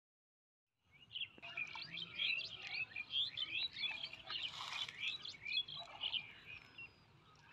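Many small birds chirping busily: dense, overlapping short gliding calls, beginning about a second in after a moment of dead silence. A brief rush of noise comes near the middle.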